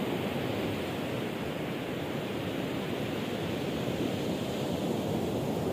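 Steady wash of sea waves on a beach.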